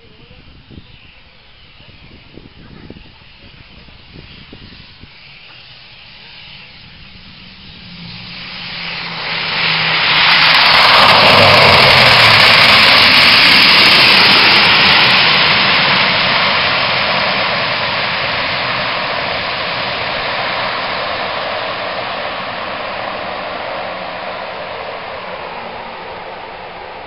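Twin-turboprop ATR 42 airliner landing, its engines and propellers growing from faint to a loud roar about ten seconds in as it passes close by on the runway. The sound then fades slowly as it rolls away.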